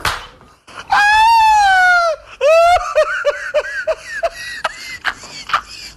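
Shrill, high-pitched laughter: a drawn-out squeal about a second long, then a quick run of short falling 'hee-hee' cries, with scattered sharp clicks.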